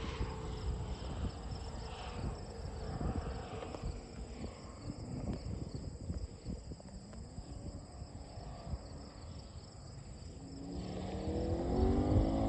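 Distant Chevrolet C8 Corvette, barely heard at first over a low wind rumble, then its engine note rising in pitch and growing steadily louder over the last couple of seconds as the car accelerates hard toward the listener.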